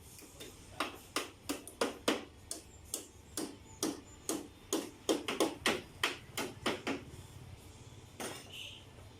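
Hammering: a quick, slightly uneven series of sharp blows, about two to three a second, then a pause and one last blow near the end.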